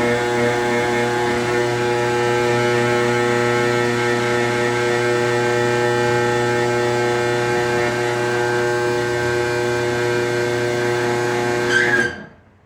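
Garage door opener motor running with a steady hum, then stopping suddenly near the end as the door reaches the end of its travel.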